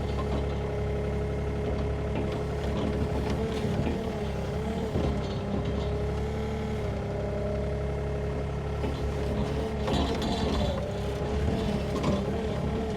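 Sany mini excavator running steadily while digging, its engine drone carrying a steady whine that wobbles slightly in pitch, with a few short knocks near the end.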